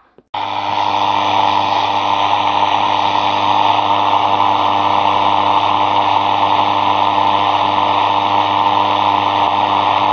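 Sanyo radio-cassette player's speaker giving out loud, even radio static with a steady low hum underneath. It switches on abruptly about a third of a second in: the radio's sound is back after a jumper wire bridged a broken track to the speaker.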